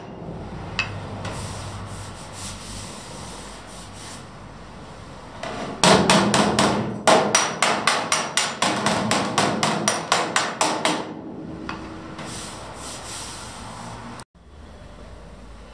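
Hammer tapping a bare metal car body panel in rapid runs of about five blows a second, starting about six seconds in and lasting about five seconds, with quieter rubbing and scraping before and after.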